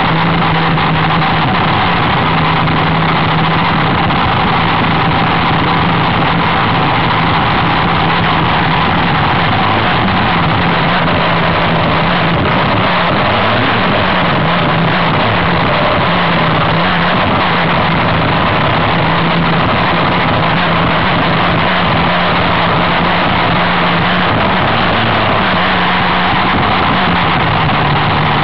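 Racing hydroplane's engine running loud and continuous at a fairly steady pitch, with a dense rushing noise over it.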